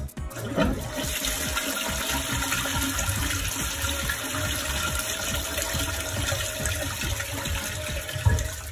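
Toilet flushing: a sharp click about half a second in, then a steady rush of water filling and swirling in a bowl clogged with a foam takeaway box and crisps, and one loud thump near the end.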